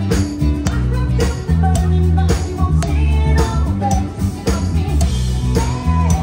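Live band performing: a woman singing into a microphone over a heavy bass line, guitar and a drum kit keeping a steady beat.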